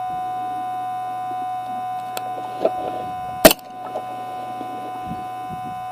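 Steady electric hum with a thin high whine, like a small motor running close by. A few faint ticks come a little after two seconds, and one sharp crack comes about three and a half seconds in.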